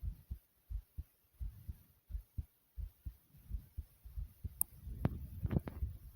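A person's heartbeat, heard close up as steady double thumps (lub-dub) at about 85 beats a minute. About four and a half seconds in, a click and a few knocks and rubbing sounds mix in with the beats.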